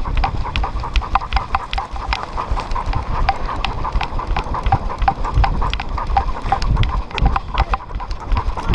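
A dog running hard, heard close up from a camera on its back: quick rhythmic panting and footfalls, about four a second, over low rumble from the camera jostling.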